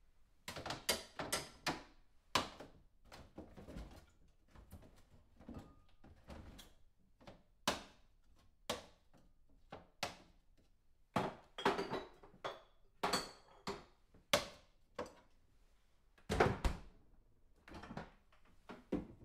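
Someone rummaging through a refrigerator: irregular clicks, knocks and clatters of items being moved and set down on shelves, with light rustling between them. Sharper knocks come in clusters, the loudest about eleven to fourteen seconds in and again at about sixteen seconds.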